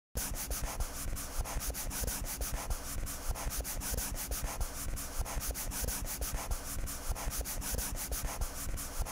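Felt-tip marker scribbling quickly back and forth on paper, colouring in: a steady, scratchy rubbing of rapid strokes that starts a moment in.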